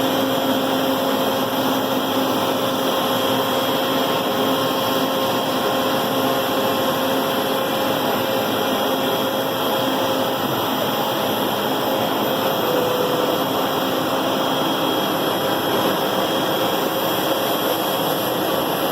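CNC router running while it cuts aluminium composite panel (Alucobond): a steady spindle whine with a few held tones over a continuous rushing noise.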